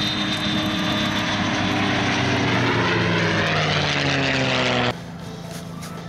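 F-86 Sabre's turbojet engine running loud as the jet rolls past on the runway, its tone dropping in pitch as it goes by. The sound cuts off abruptly about five seconds in, leaving a much quieter steady sound.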